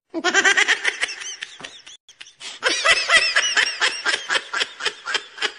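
High-pitched laughter in quick pulses, in two runs with a short break about two seconds in, the second run fading toward the end.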